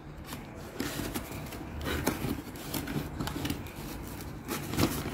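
Cardboard box being handled and unpacked: flaps and inner card sliding and scraping against each other, with a few short sharp crinkles or taps.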